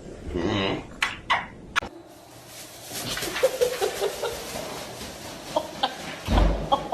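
An animal making a run of short, repeated clucking calls, with a dull thump near the end.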